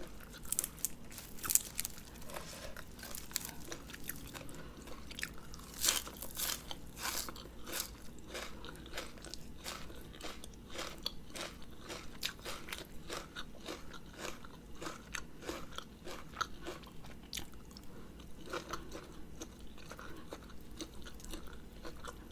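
Close-miked chewing and crunching of a spicy Thai rice-noodle salad: a steady run of short wet clicks and crunches, the loudest crunches about 1.5 s and 6 s in.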